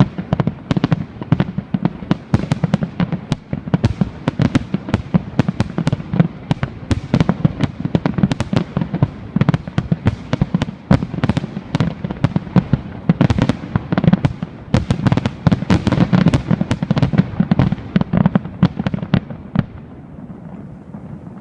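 Fireworks display: a dense, continuous barrage of sharp bangs from bursting shells. The bangs stop about twenty seconds in, leaving only a low, steady noise.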